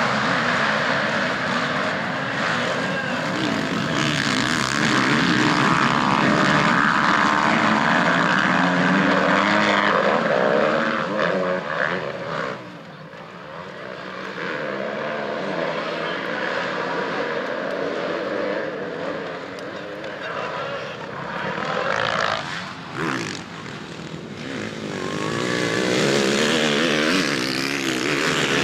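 Several motocross bikes racing, their engines revving up and down in pitch as they pass, with brief drops in level about halfway through and again near the end.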